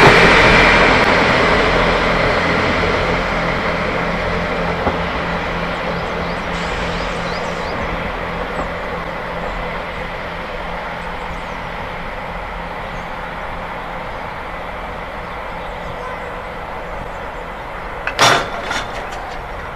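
Class 158 diesel multiple unit's engines running under power as the train pulls away, the sound fading steadily to a low hum. A brief clatter comes near the end.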